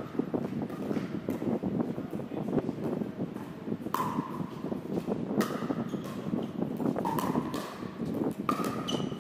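Pickleball rally: paddles striking the plastic ball in a string of sharp, irregular pops, with ball bounces on the court.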